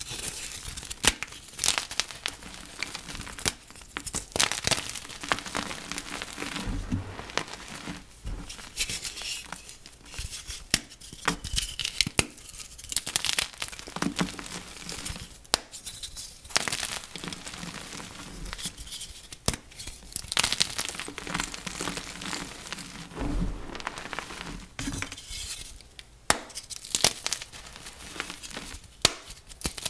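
Flaky dyed gym chalk being crushed: a dense, irregular crackling and crunching with sharp snaps scattered throughout.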